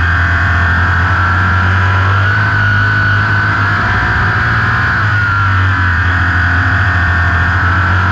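Onboard sound of an open-wheel race car's engine running hard at racing speed around a short oval, its pitch wavering slightly up and down with the throttle through the turns.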